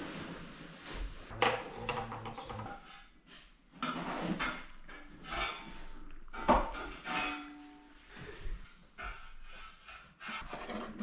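Irregular knocks, scrapes and clatter of pots, utensils and wood being handled while cooking at a hut fireside.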